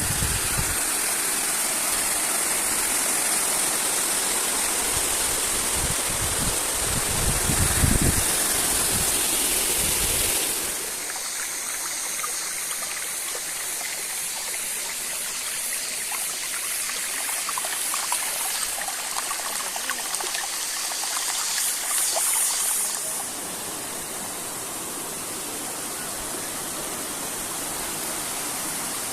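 Water from a waterfall rushing steadily, with low rumbling thumps in the first ten seconds. The sound drops in level and changes character suddenly about ten seconds in, and again later, as between cut clips.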